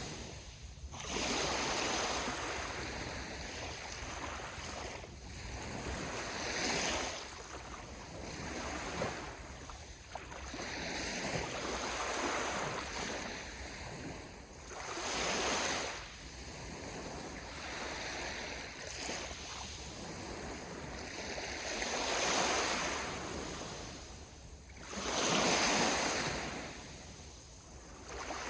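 Ocean waves breaking and washing on the shore, a rushing surge swelling and fading every few seconds, the largest near the end. A low wind rumble on the microphone runs underneath.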